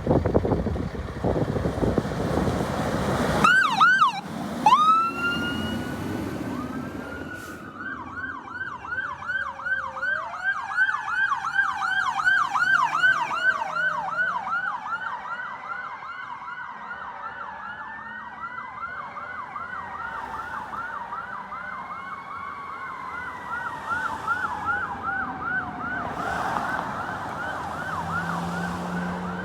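Emergency vehicle sirens: after a few seconds of loud rushing vehicle noise, an electronic yelp siren cycles rapidly and steadily. Beneath it, a Federal Q2B mechanical siren slowly rises and falls several times, fading out near the end.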